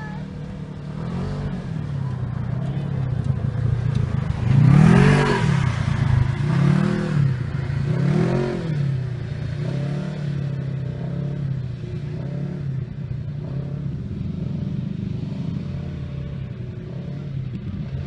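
Polaris RZR 1000 side-by-side's twin-cylinder engine running as it drives on dirt, revving up and back down several times, the loudest swell about five seconds in.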